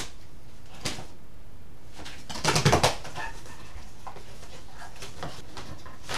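Cardboard shipping box being opened by hand: a sharp click about a second in, then a quick run of crackles and rips about two and a half seconds in as the taped flaps are pulled apart.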